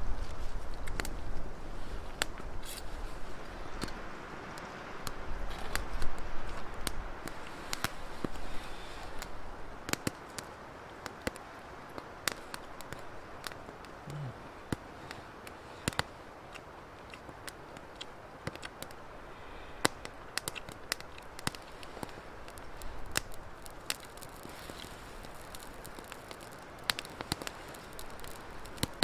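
Firewood crackling and popping in a small portable wood-burning stove: irregular sharp pops over a steady low hiss.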